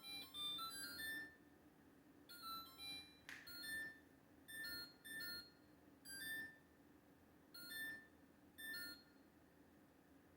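LG LFX25960ST refrigerator's control panel beeping by itself: two quick runs of several electronic chime tones, then a click, then a string of single beeps at uneven intervals. This is the uncommanded flashing-and-beeping fault the fridge has. A steady low hum runs underneath.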